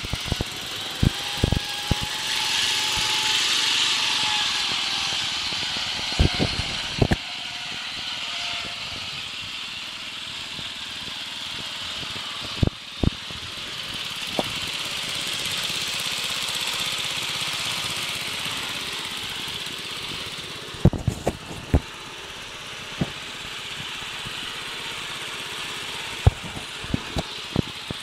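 Small engine of a riding lawn mower running steadily as it drives over rough, bumpy ground, with sharp knocks scattered throughout.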